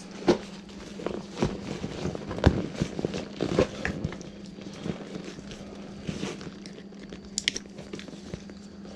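Crinkling and rustling of a black plastic or nylon bag being handled and opened, with scattered knocks and clicks. A faint steady hum sits underneath.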